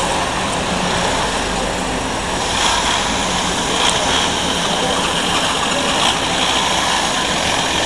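Street traffic: motor vehicles running, a steady wash of engine and road noise with a low hum underneath.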